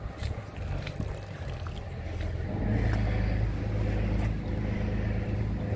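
An engine running at a steady speed, its low hum swelling louder about two and a half seconds in and then holding steady.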